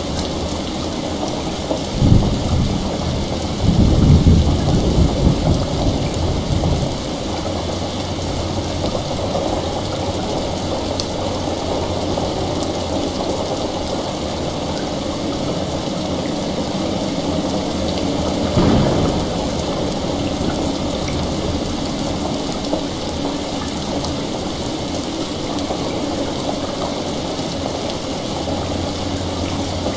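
Steady heavy rain with thunder: a rumble starts about two seconds in and swells until about seven seconds, and a shorter crack of thunder comes about nineteen seconds in.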